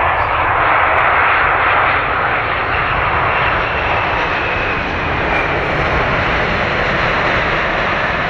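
Boeing 787-8's General Electric GEnx-1B64 turbofans running loud and steady on the landing roll just after touchdown, the thrust reversers deployed, with a deep rumble beneath the jet roar.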